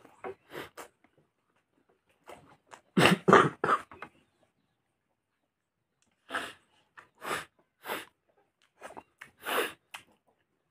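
Close-up mouth noises of a person eating chicken and rice: short separate bursts of smacking and chewing, the loudest a quick cluster of three about three seconds in.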